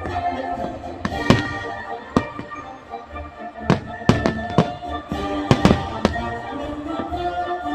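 Fireworks salute shells bursting overhead: a run of sharp bangs at irregular intervals, some close together, with music playing underneath.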